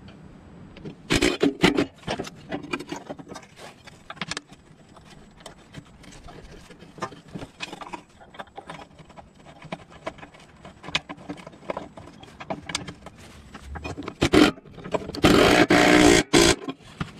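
Metal clicks, knocks and scrapes as a rusty steel brake arm is worked by hand onto its post beside a mower deck spindle pulley, with a louder burst of scraping and rattling near the end.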